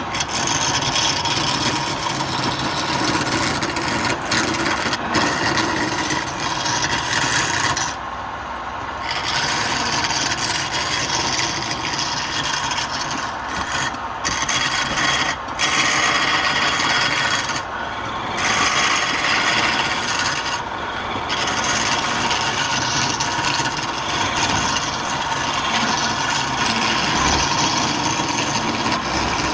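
A wood lathe running, with a tool scraping continuously against the spinning wood. The scraping breaks off briefly a few times as the tool is lifted.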